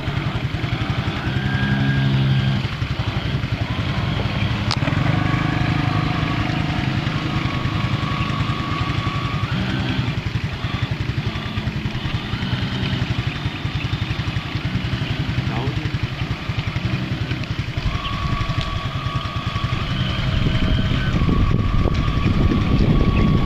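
Radio-controlled boat's motor whining at steady pitches that shift from time to time with the throttle, over a steady low rumble of wind on the microphone.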